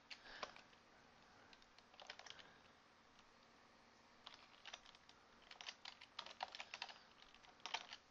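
Faint computer keyboard typing: short runs of keystrokes with pauses between them.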